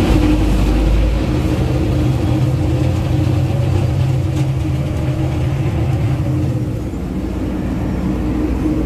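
Water bus's engine running with a steady low drone, under a rush of wind and choppy water.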